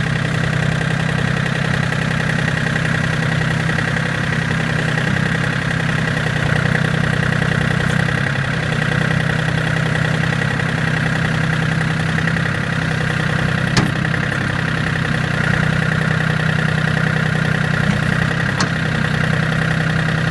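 John Deere 770 compact tractor's three-cylinder diesel engine running steadily while the front-end loader is raised, with a steady high whine above the engine note. Two sharp clicks come in the second half.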